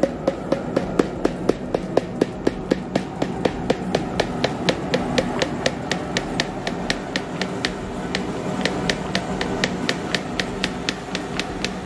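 A ladle knocking and scraping against an iron kadai as a boiling liquid mixture is stirred continuously, a steady rhythm of sharp knocks about four a second over a low steady hum.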